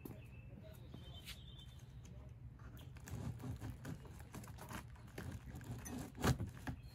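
Plastic packing straps on a large cardboard box being pulled and cut free: scattered small clicks and rustles of strap and cardboard, busier in the second half, with one sharper click about six seconds in.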